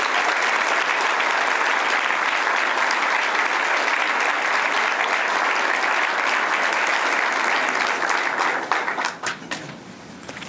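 A crowd applauding steadily, then dying away into a few scattered claps about eight and a half seconds in.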